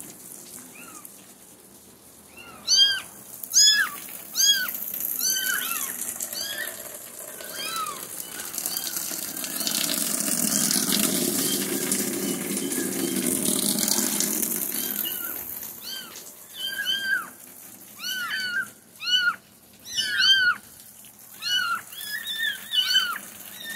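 Soaked young kittens meowing over and over in short, high-pitched calls that rise and fall, in two runs, with several calls close together near the end. Between the runs, a stretch of steady rushing noise.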